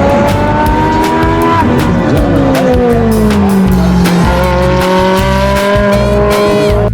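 Race car engine sound effect over background music: the engine note climbs for about a second and a half, falls over the next two and a half seconds, then climbs again and holds until it cuts off near the end.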